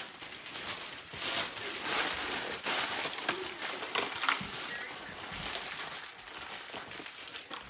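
Cardboard box and paper packing rustling and crinkling as the box is handled and pulled open, in a run of short, irregular scrapes and crackles.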